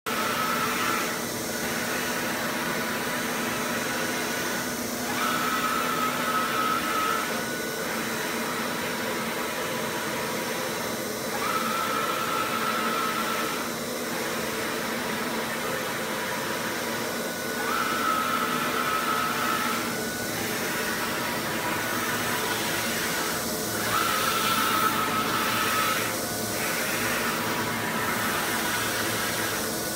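A Mimaki JFX500-2131 UV flatbed printer printing, its print-head carriage passing back and forth over the bed. The machine gives a steady hiss, and a high whine comes in for about two seconds roughly every six seconds.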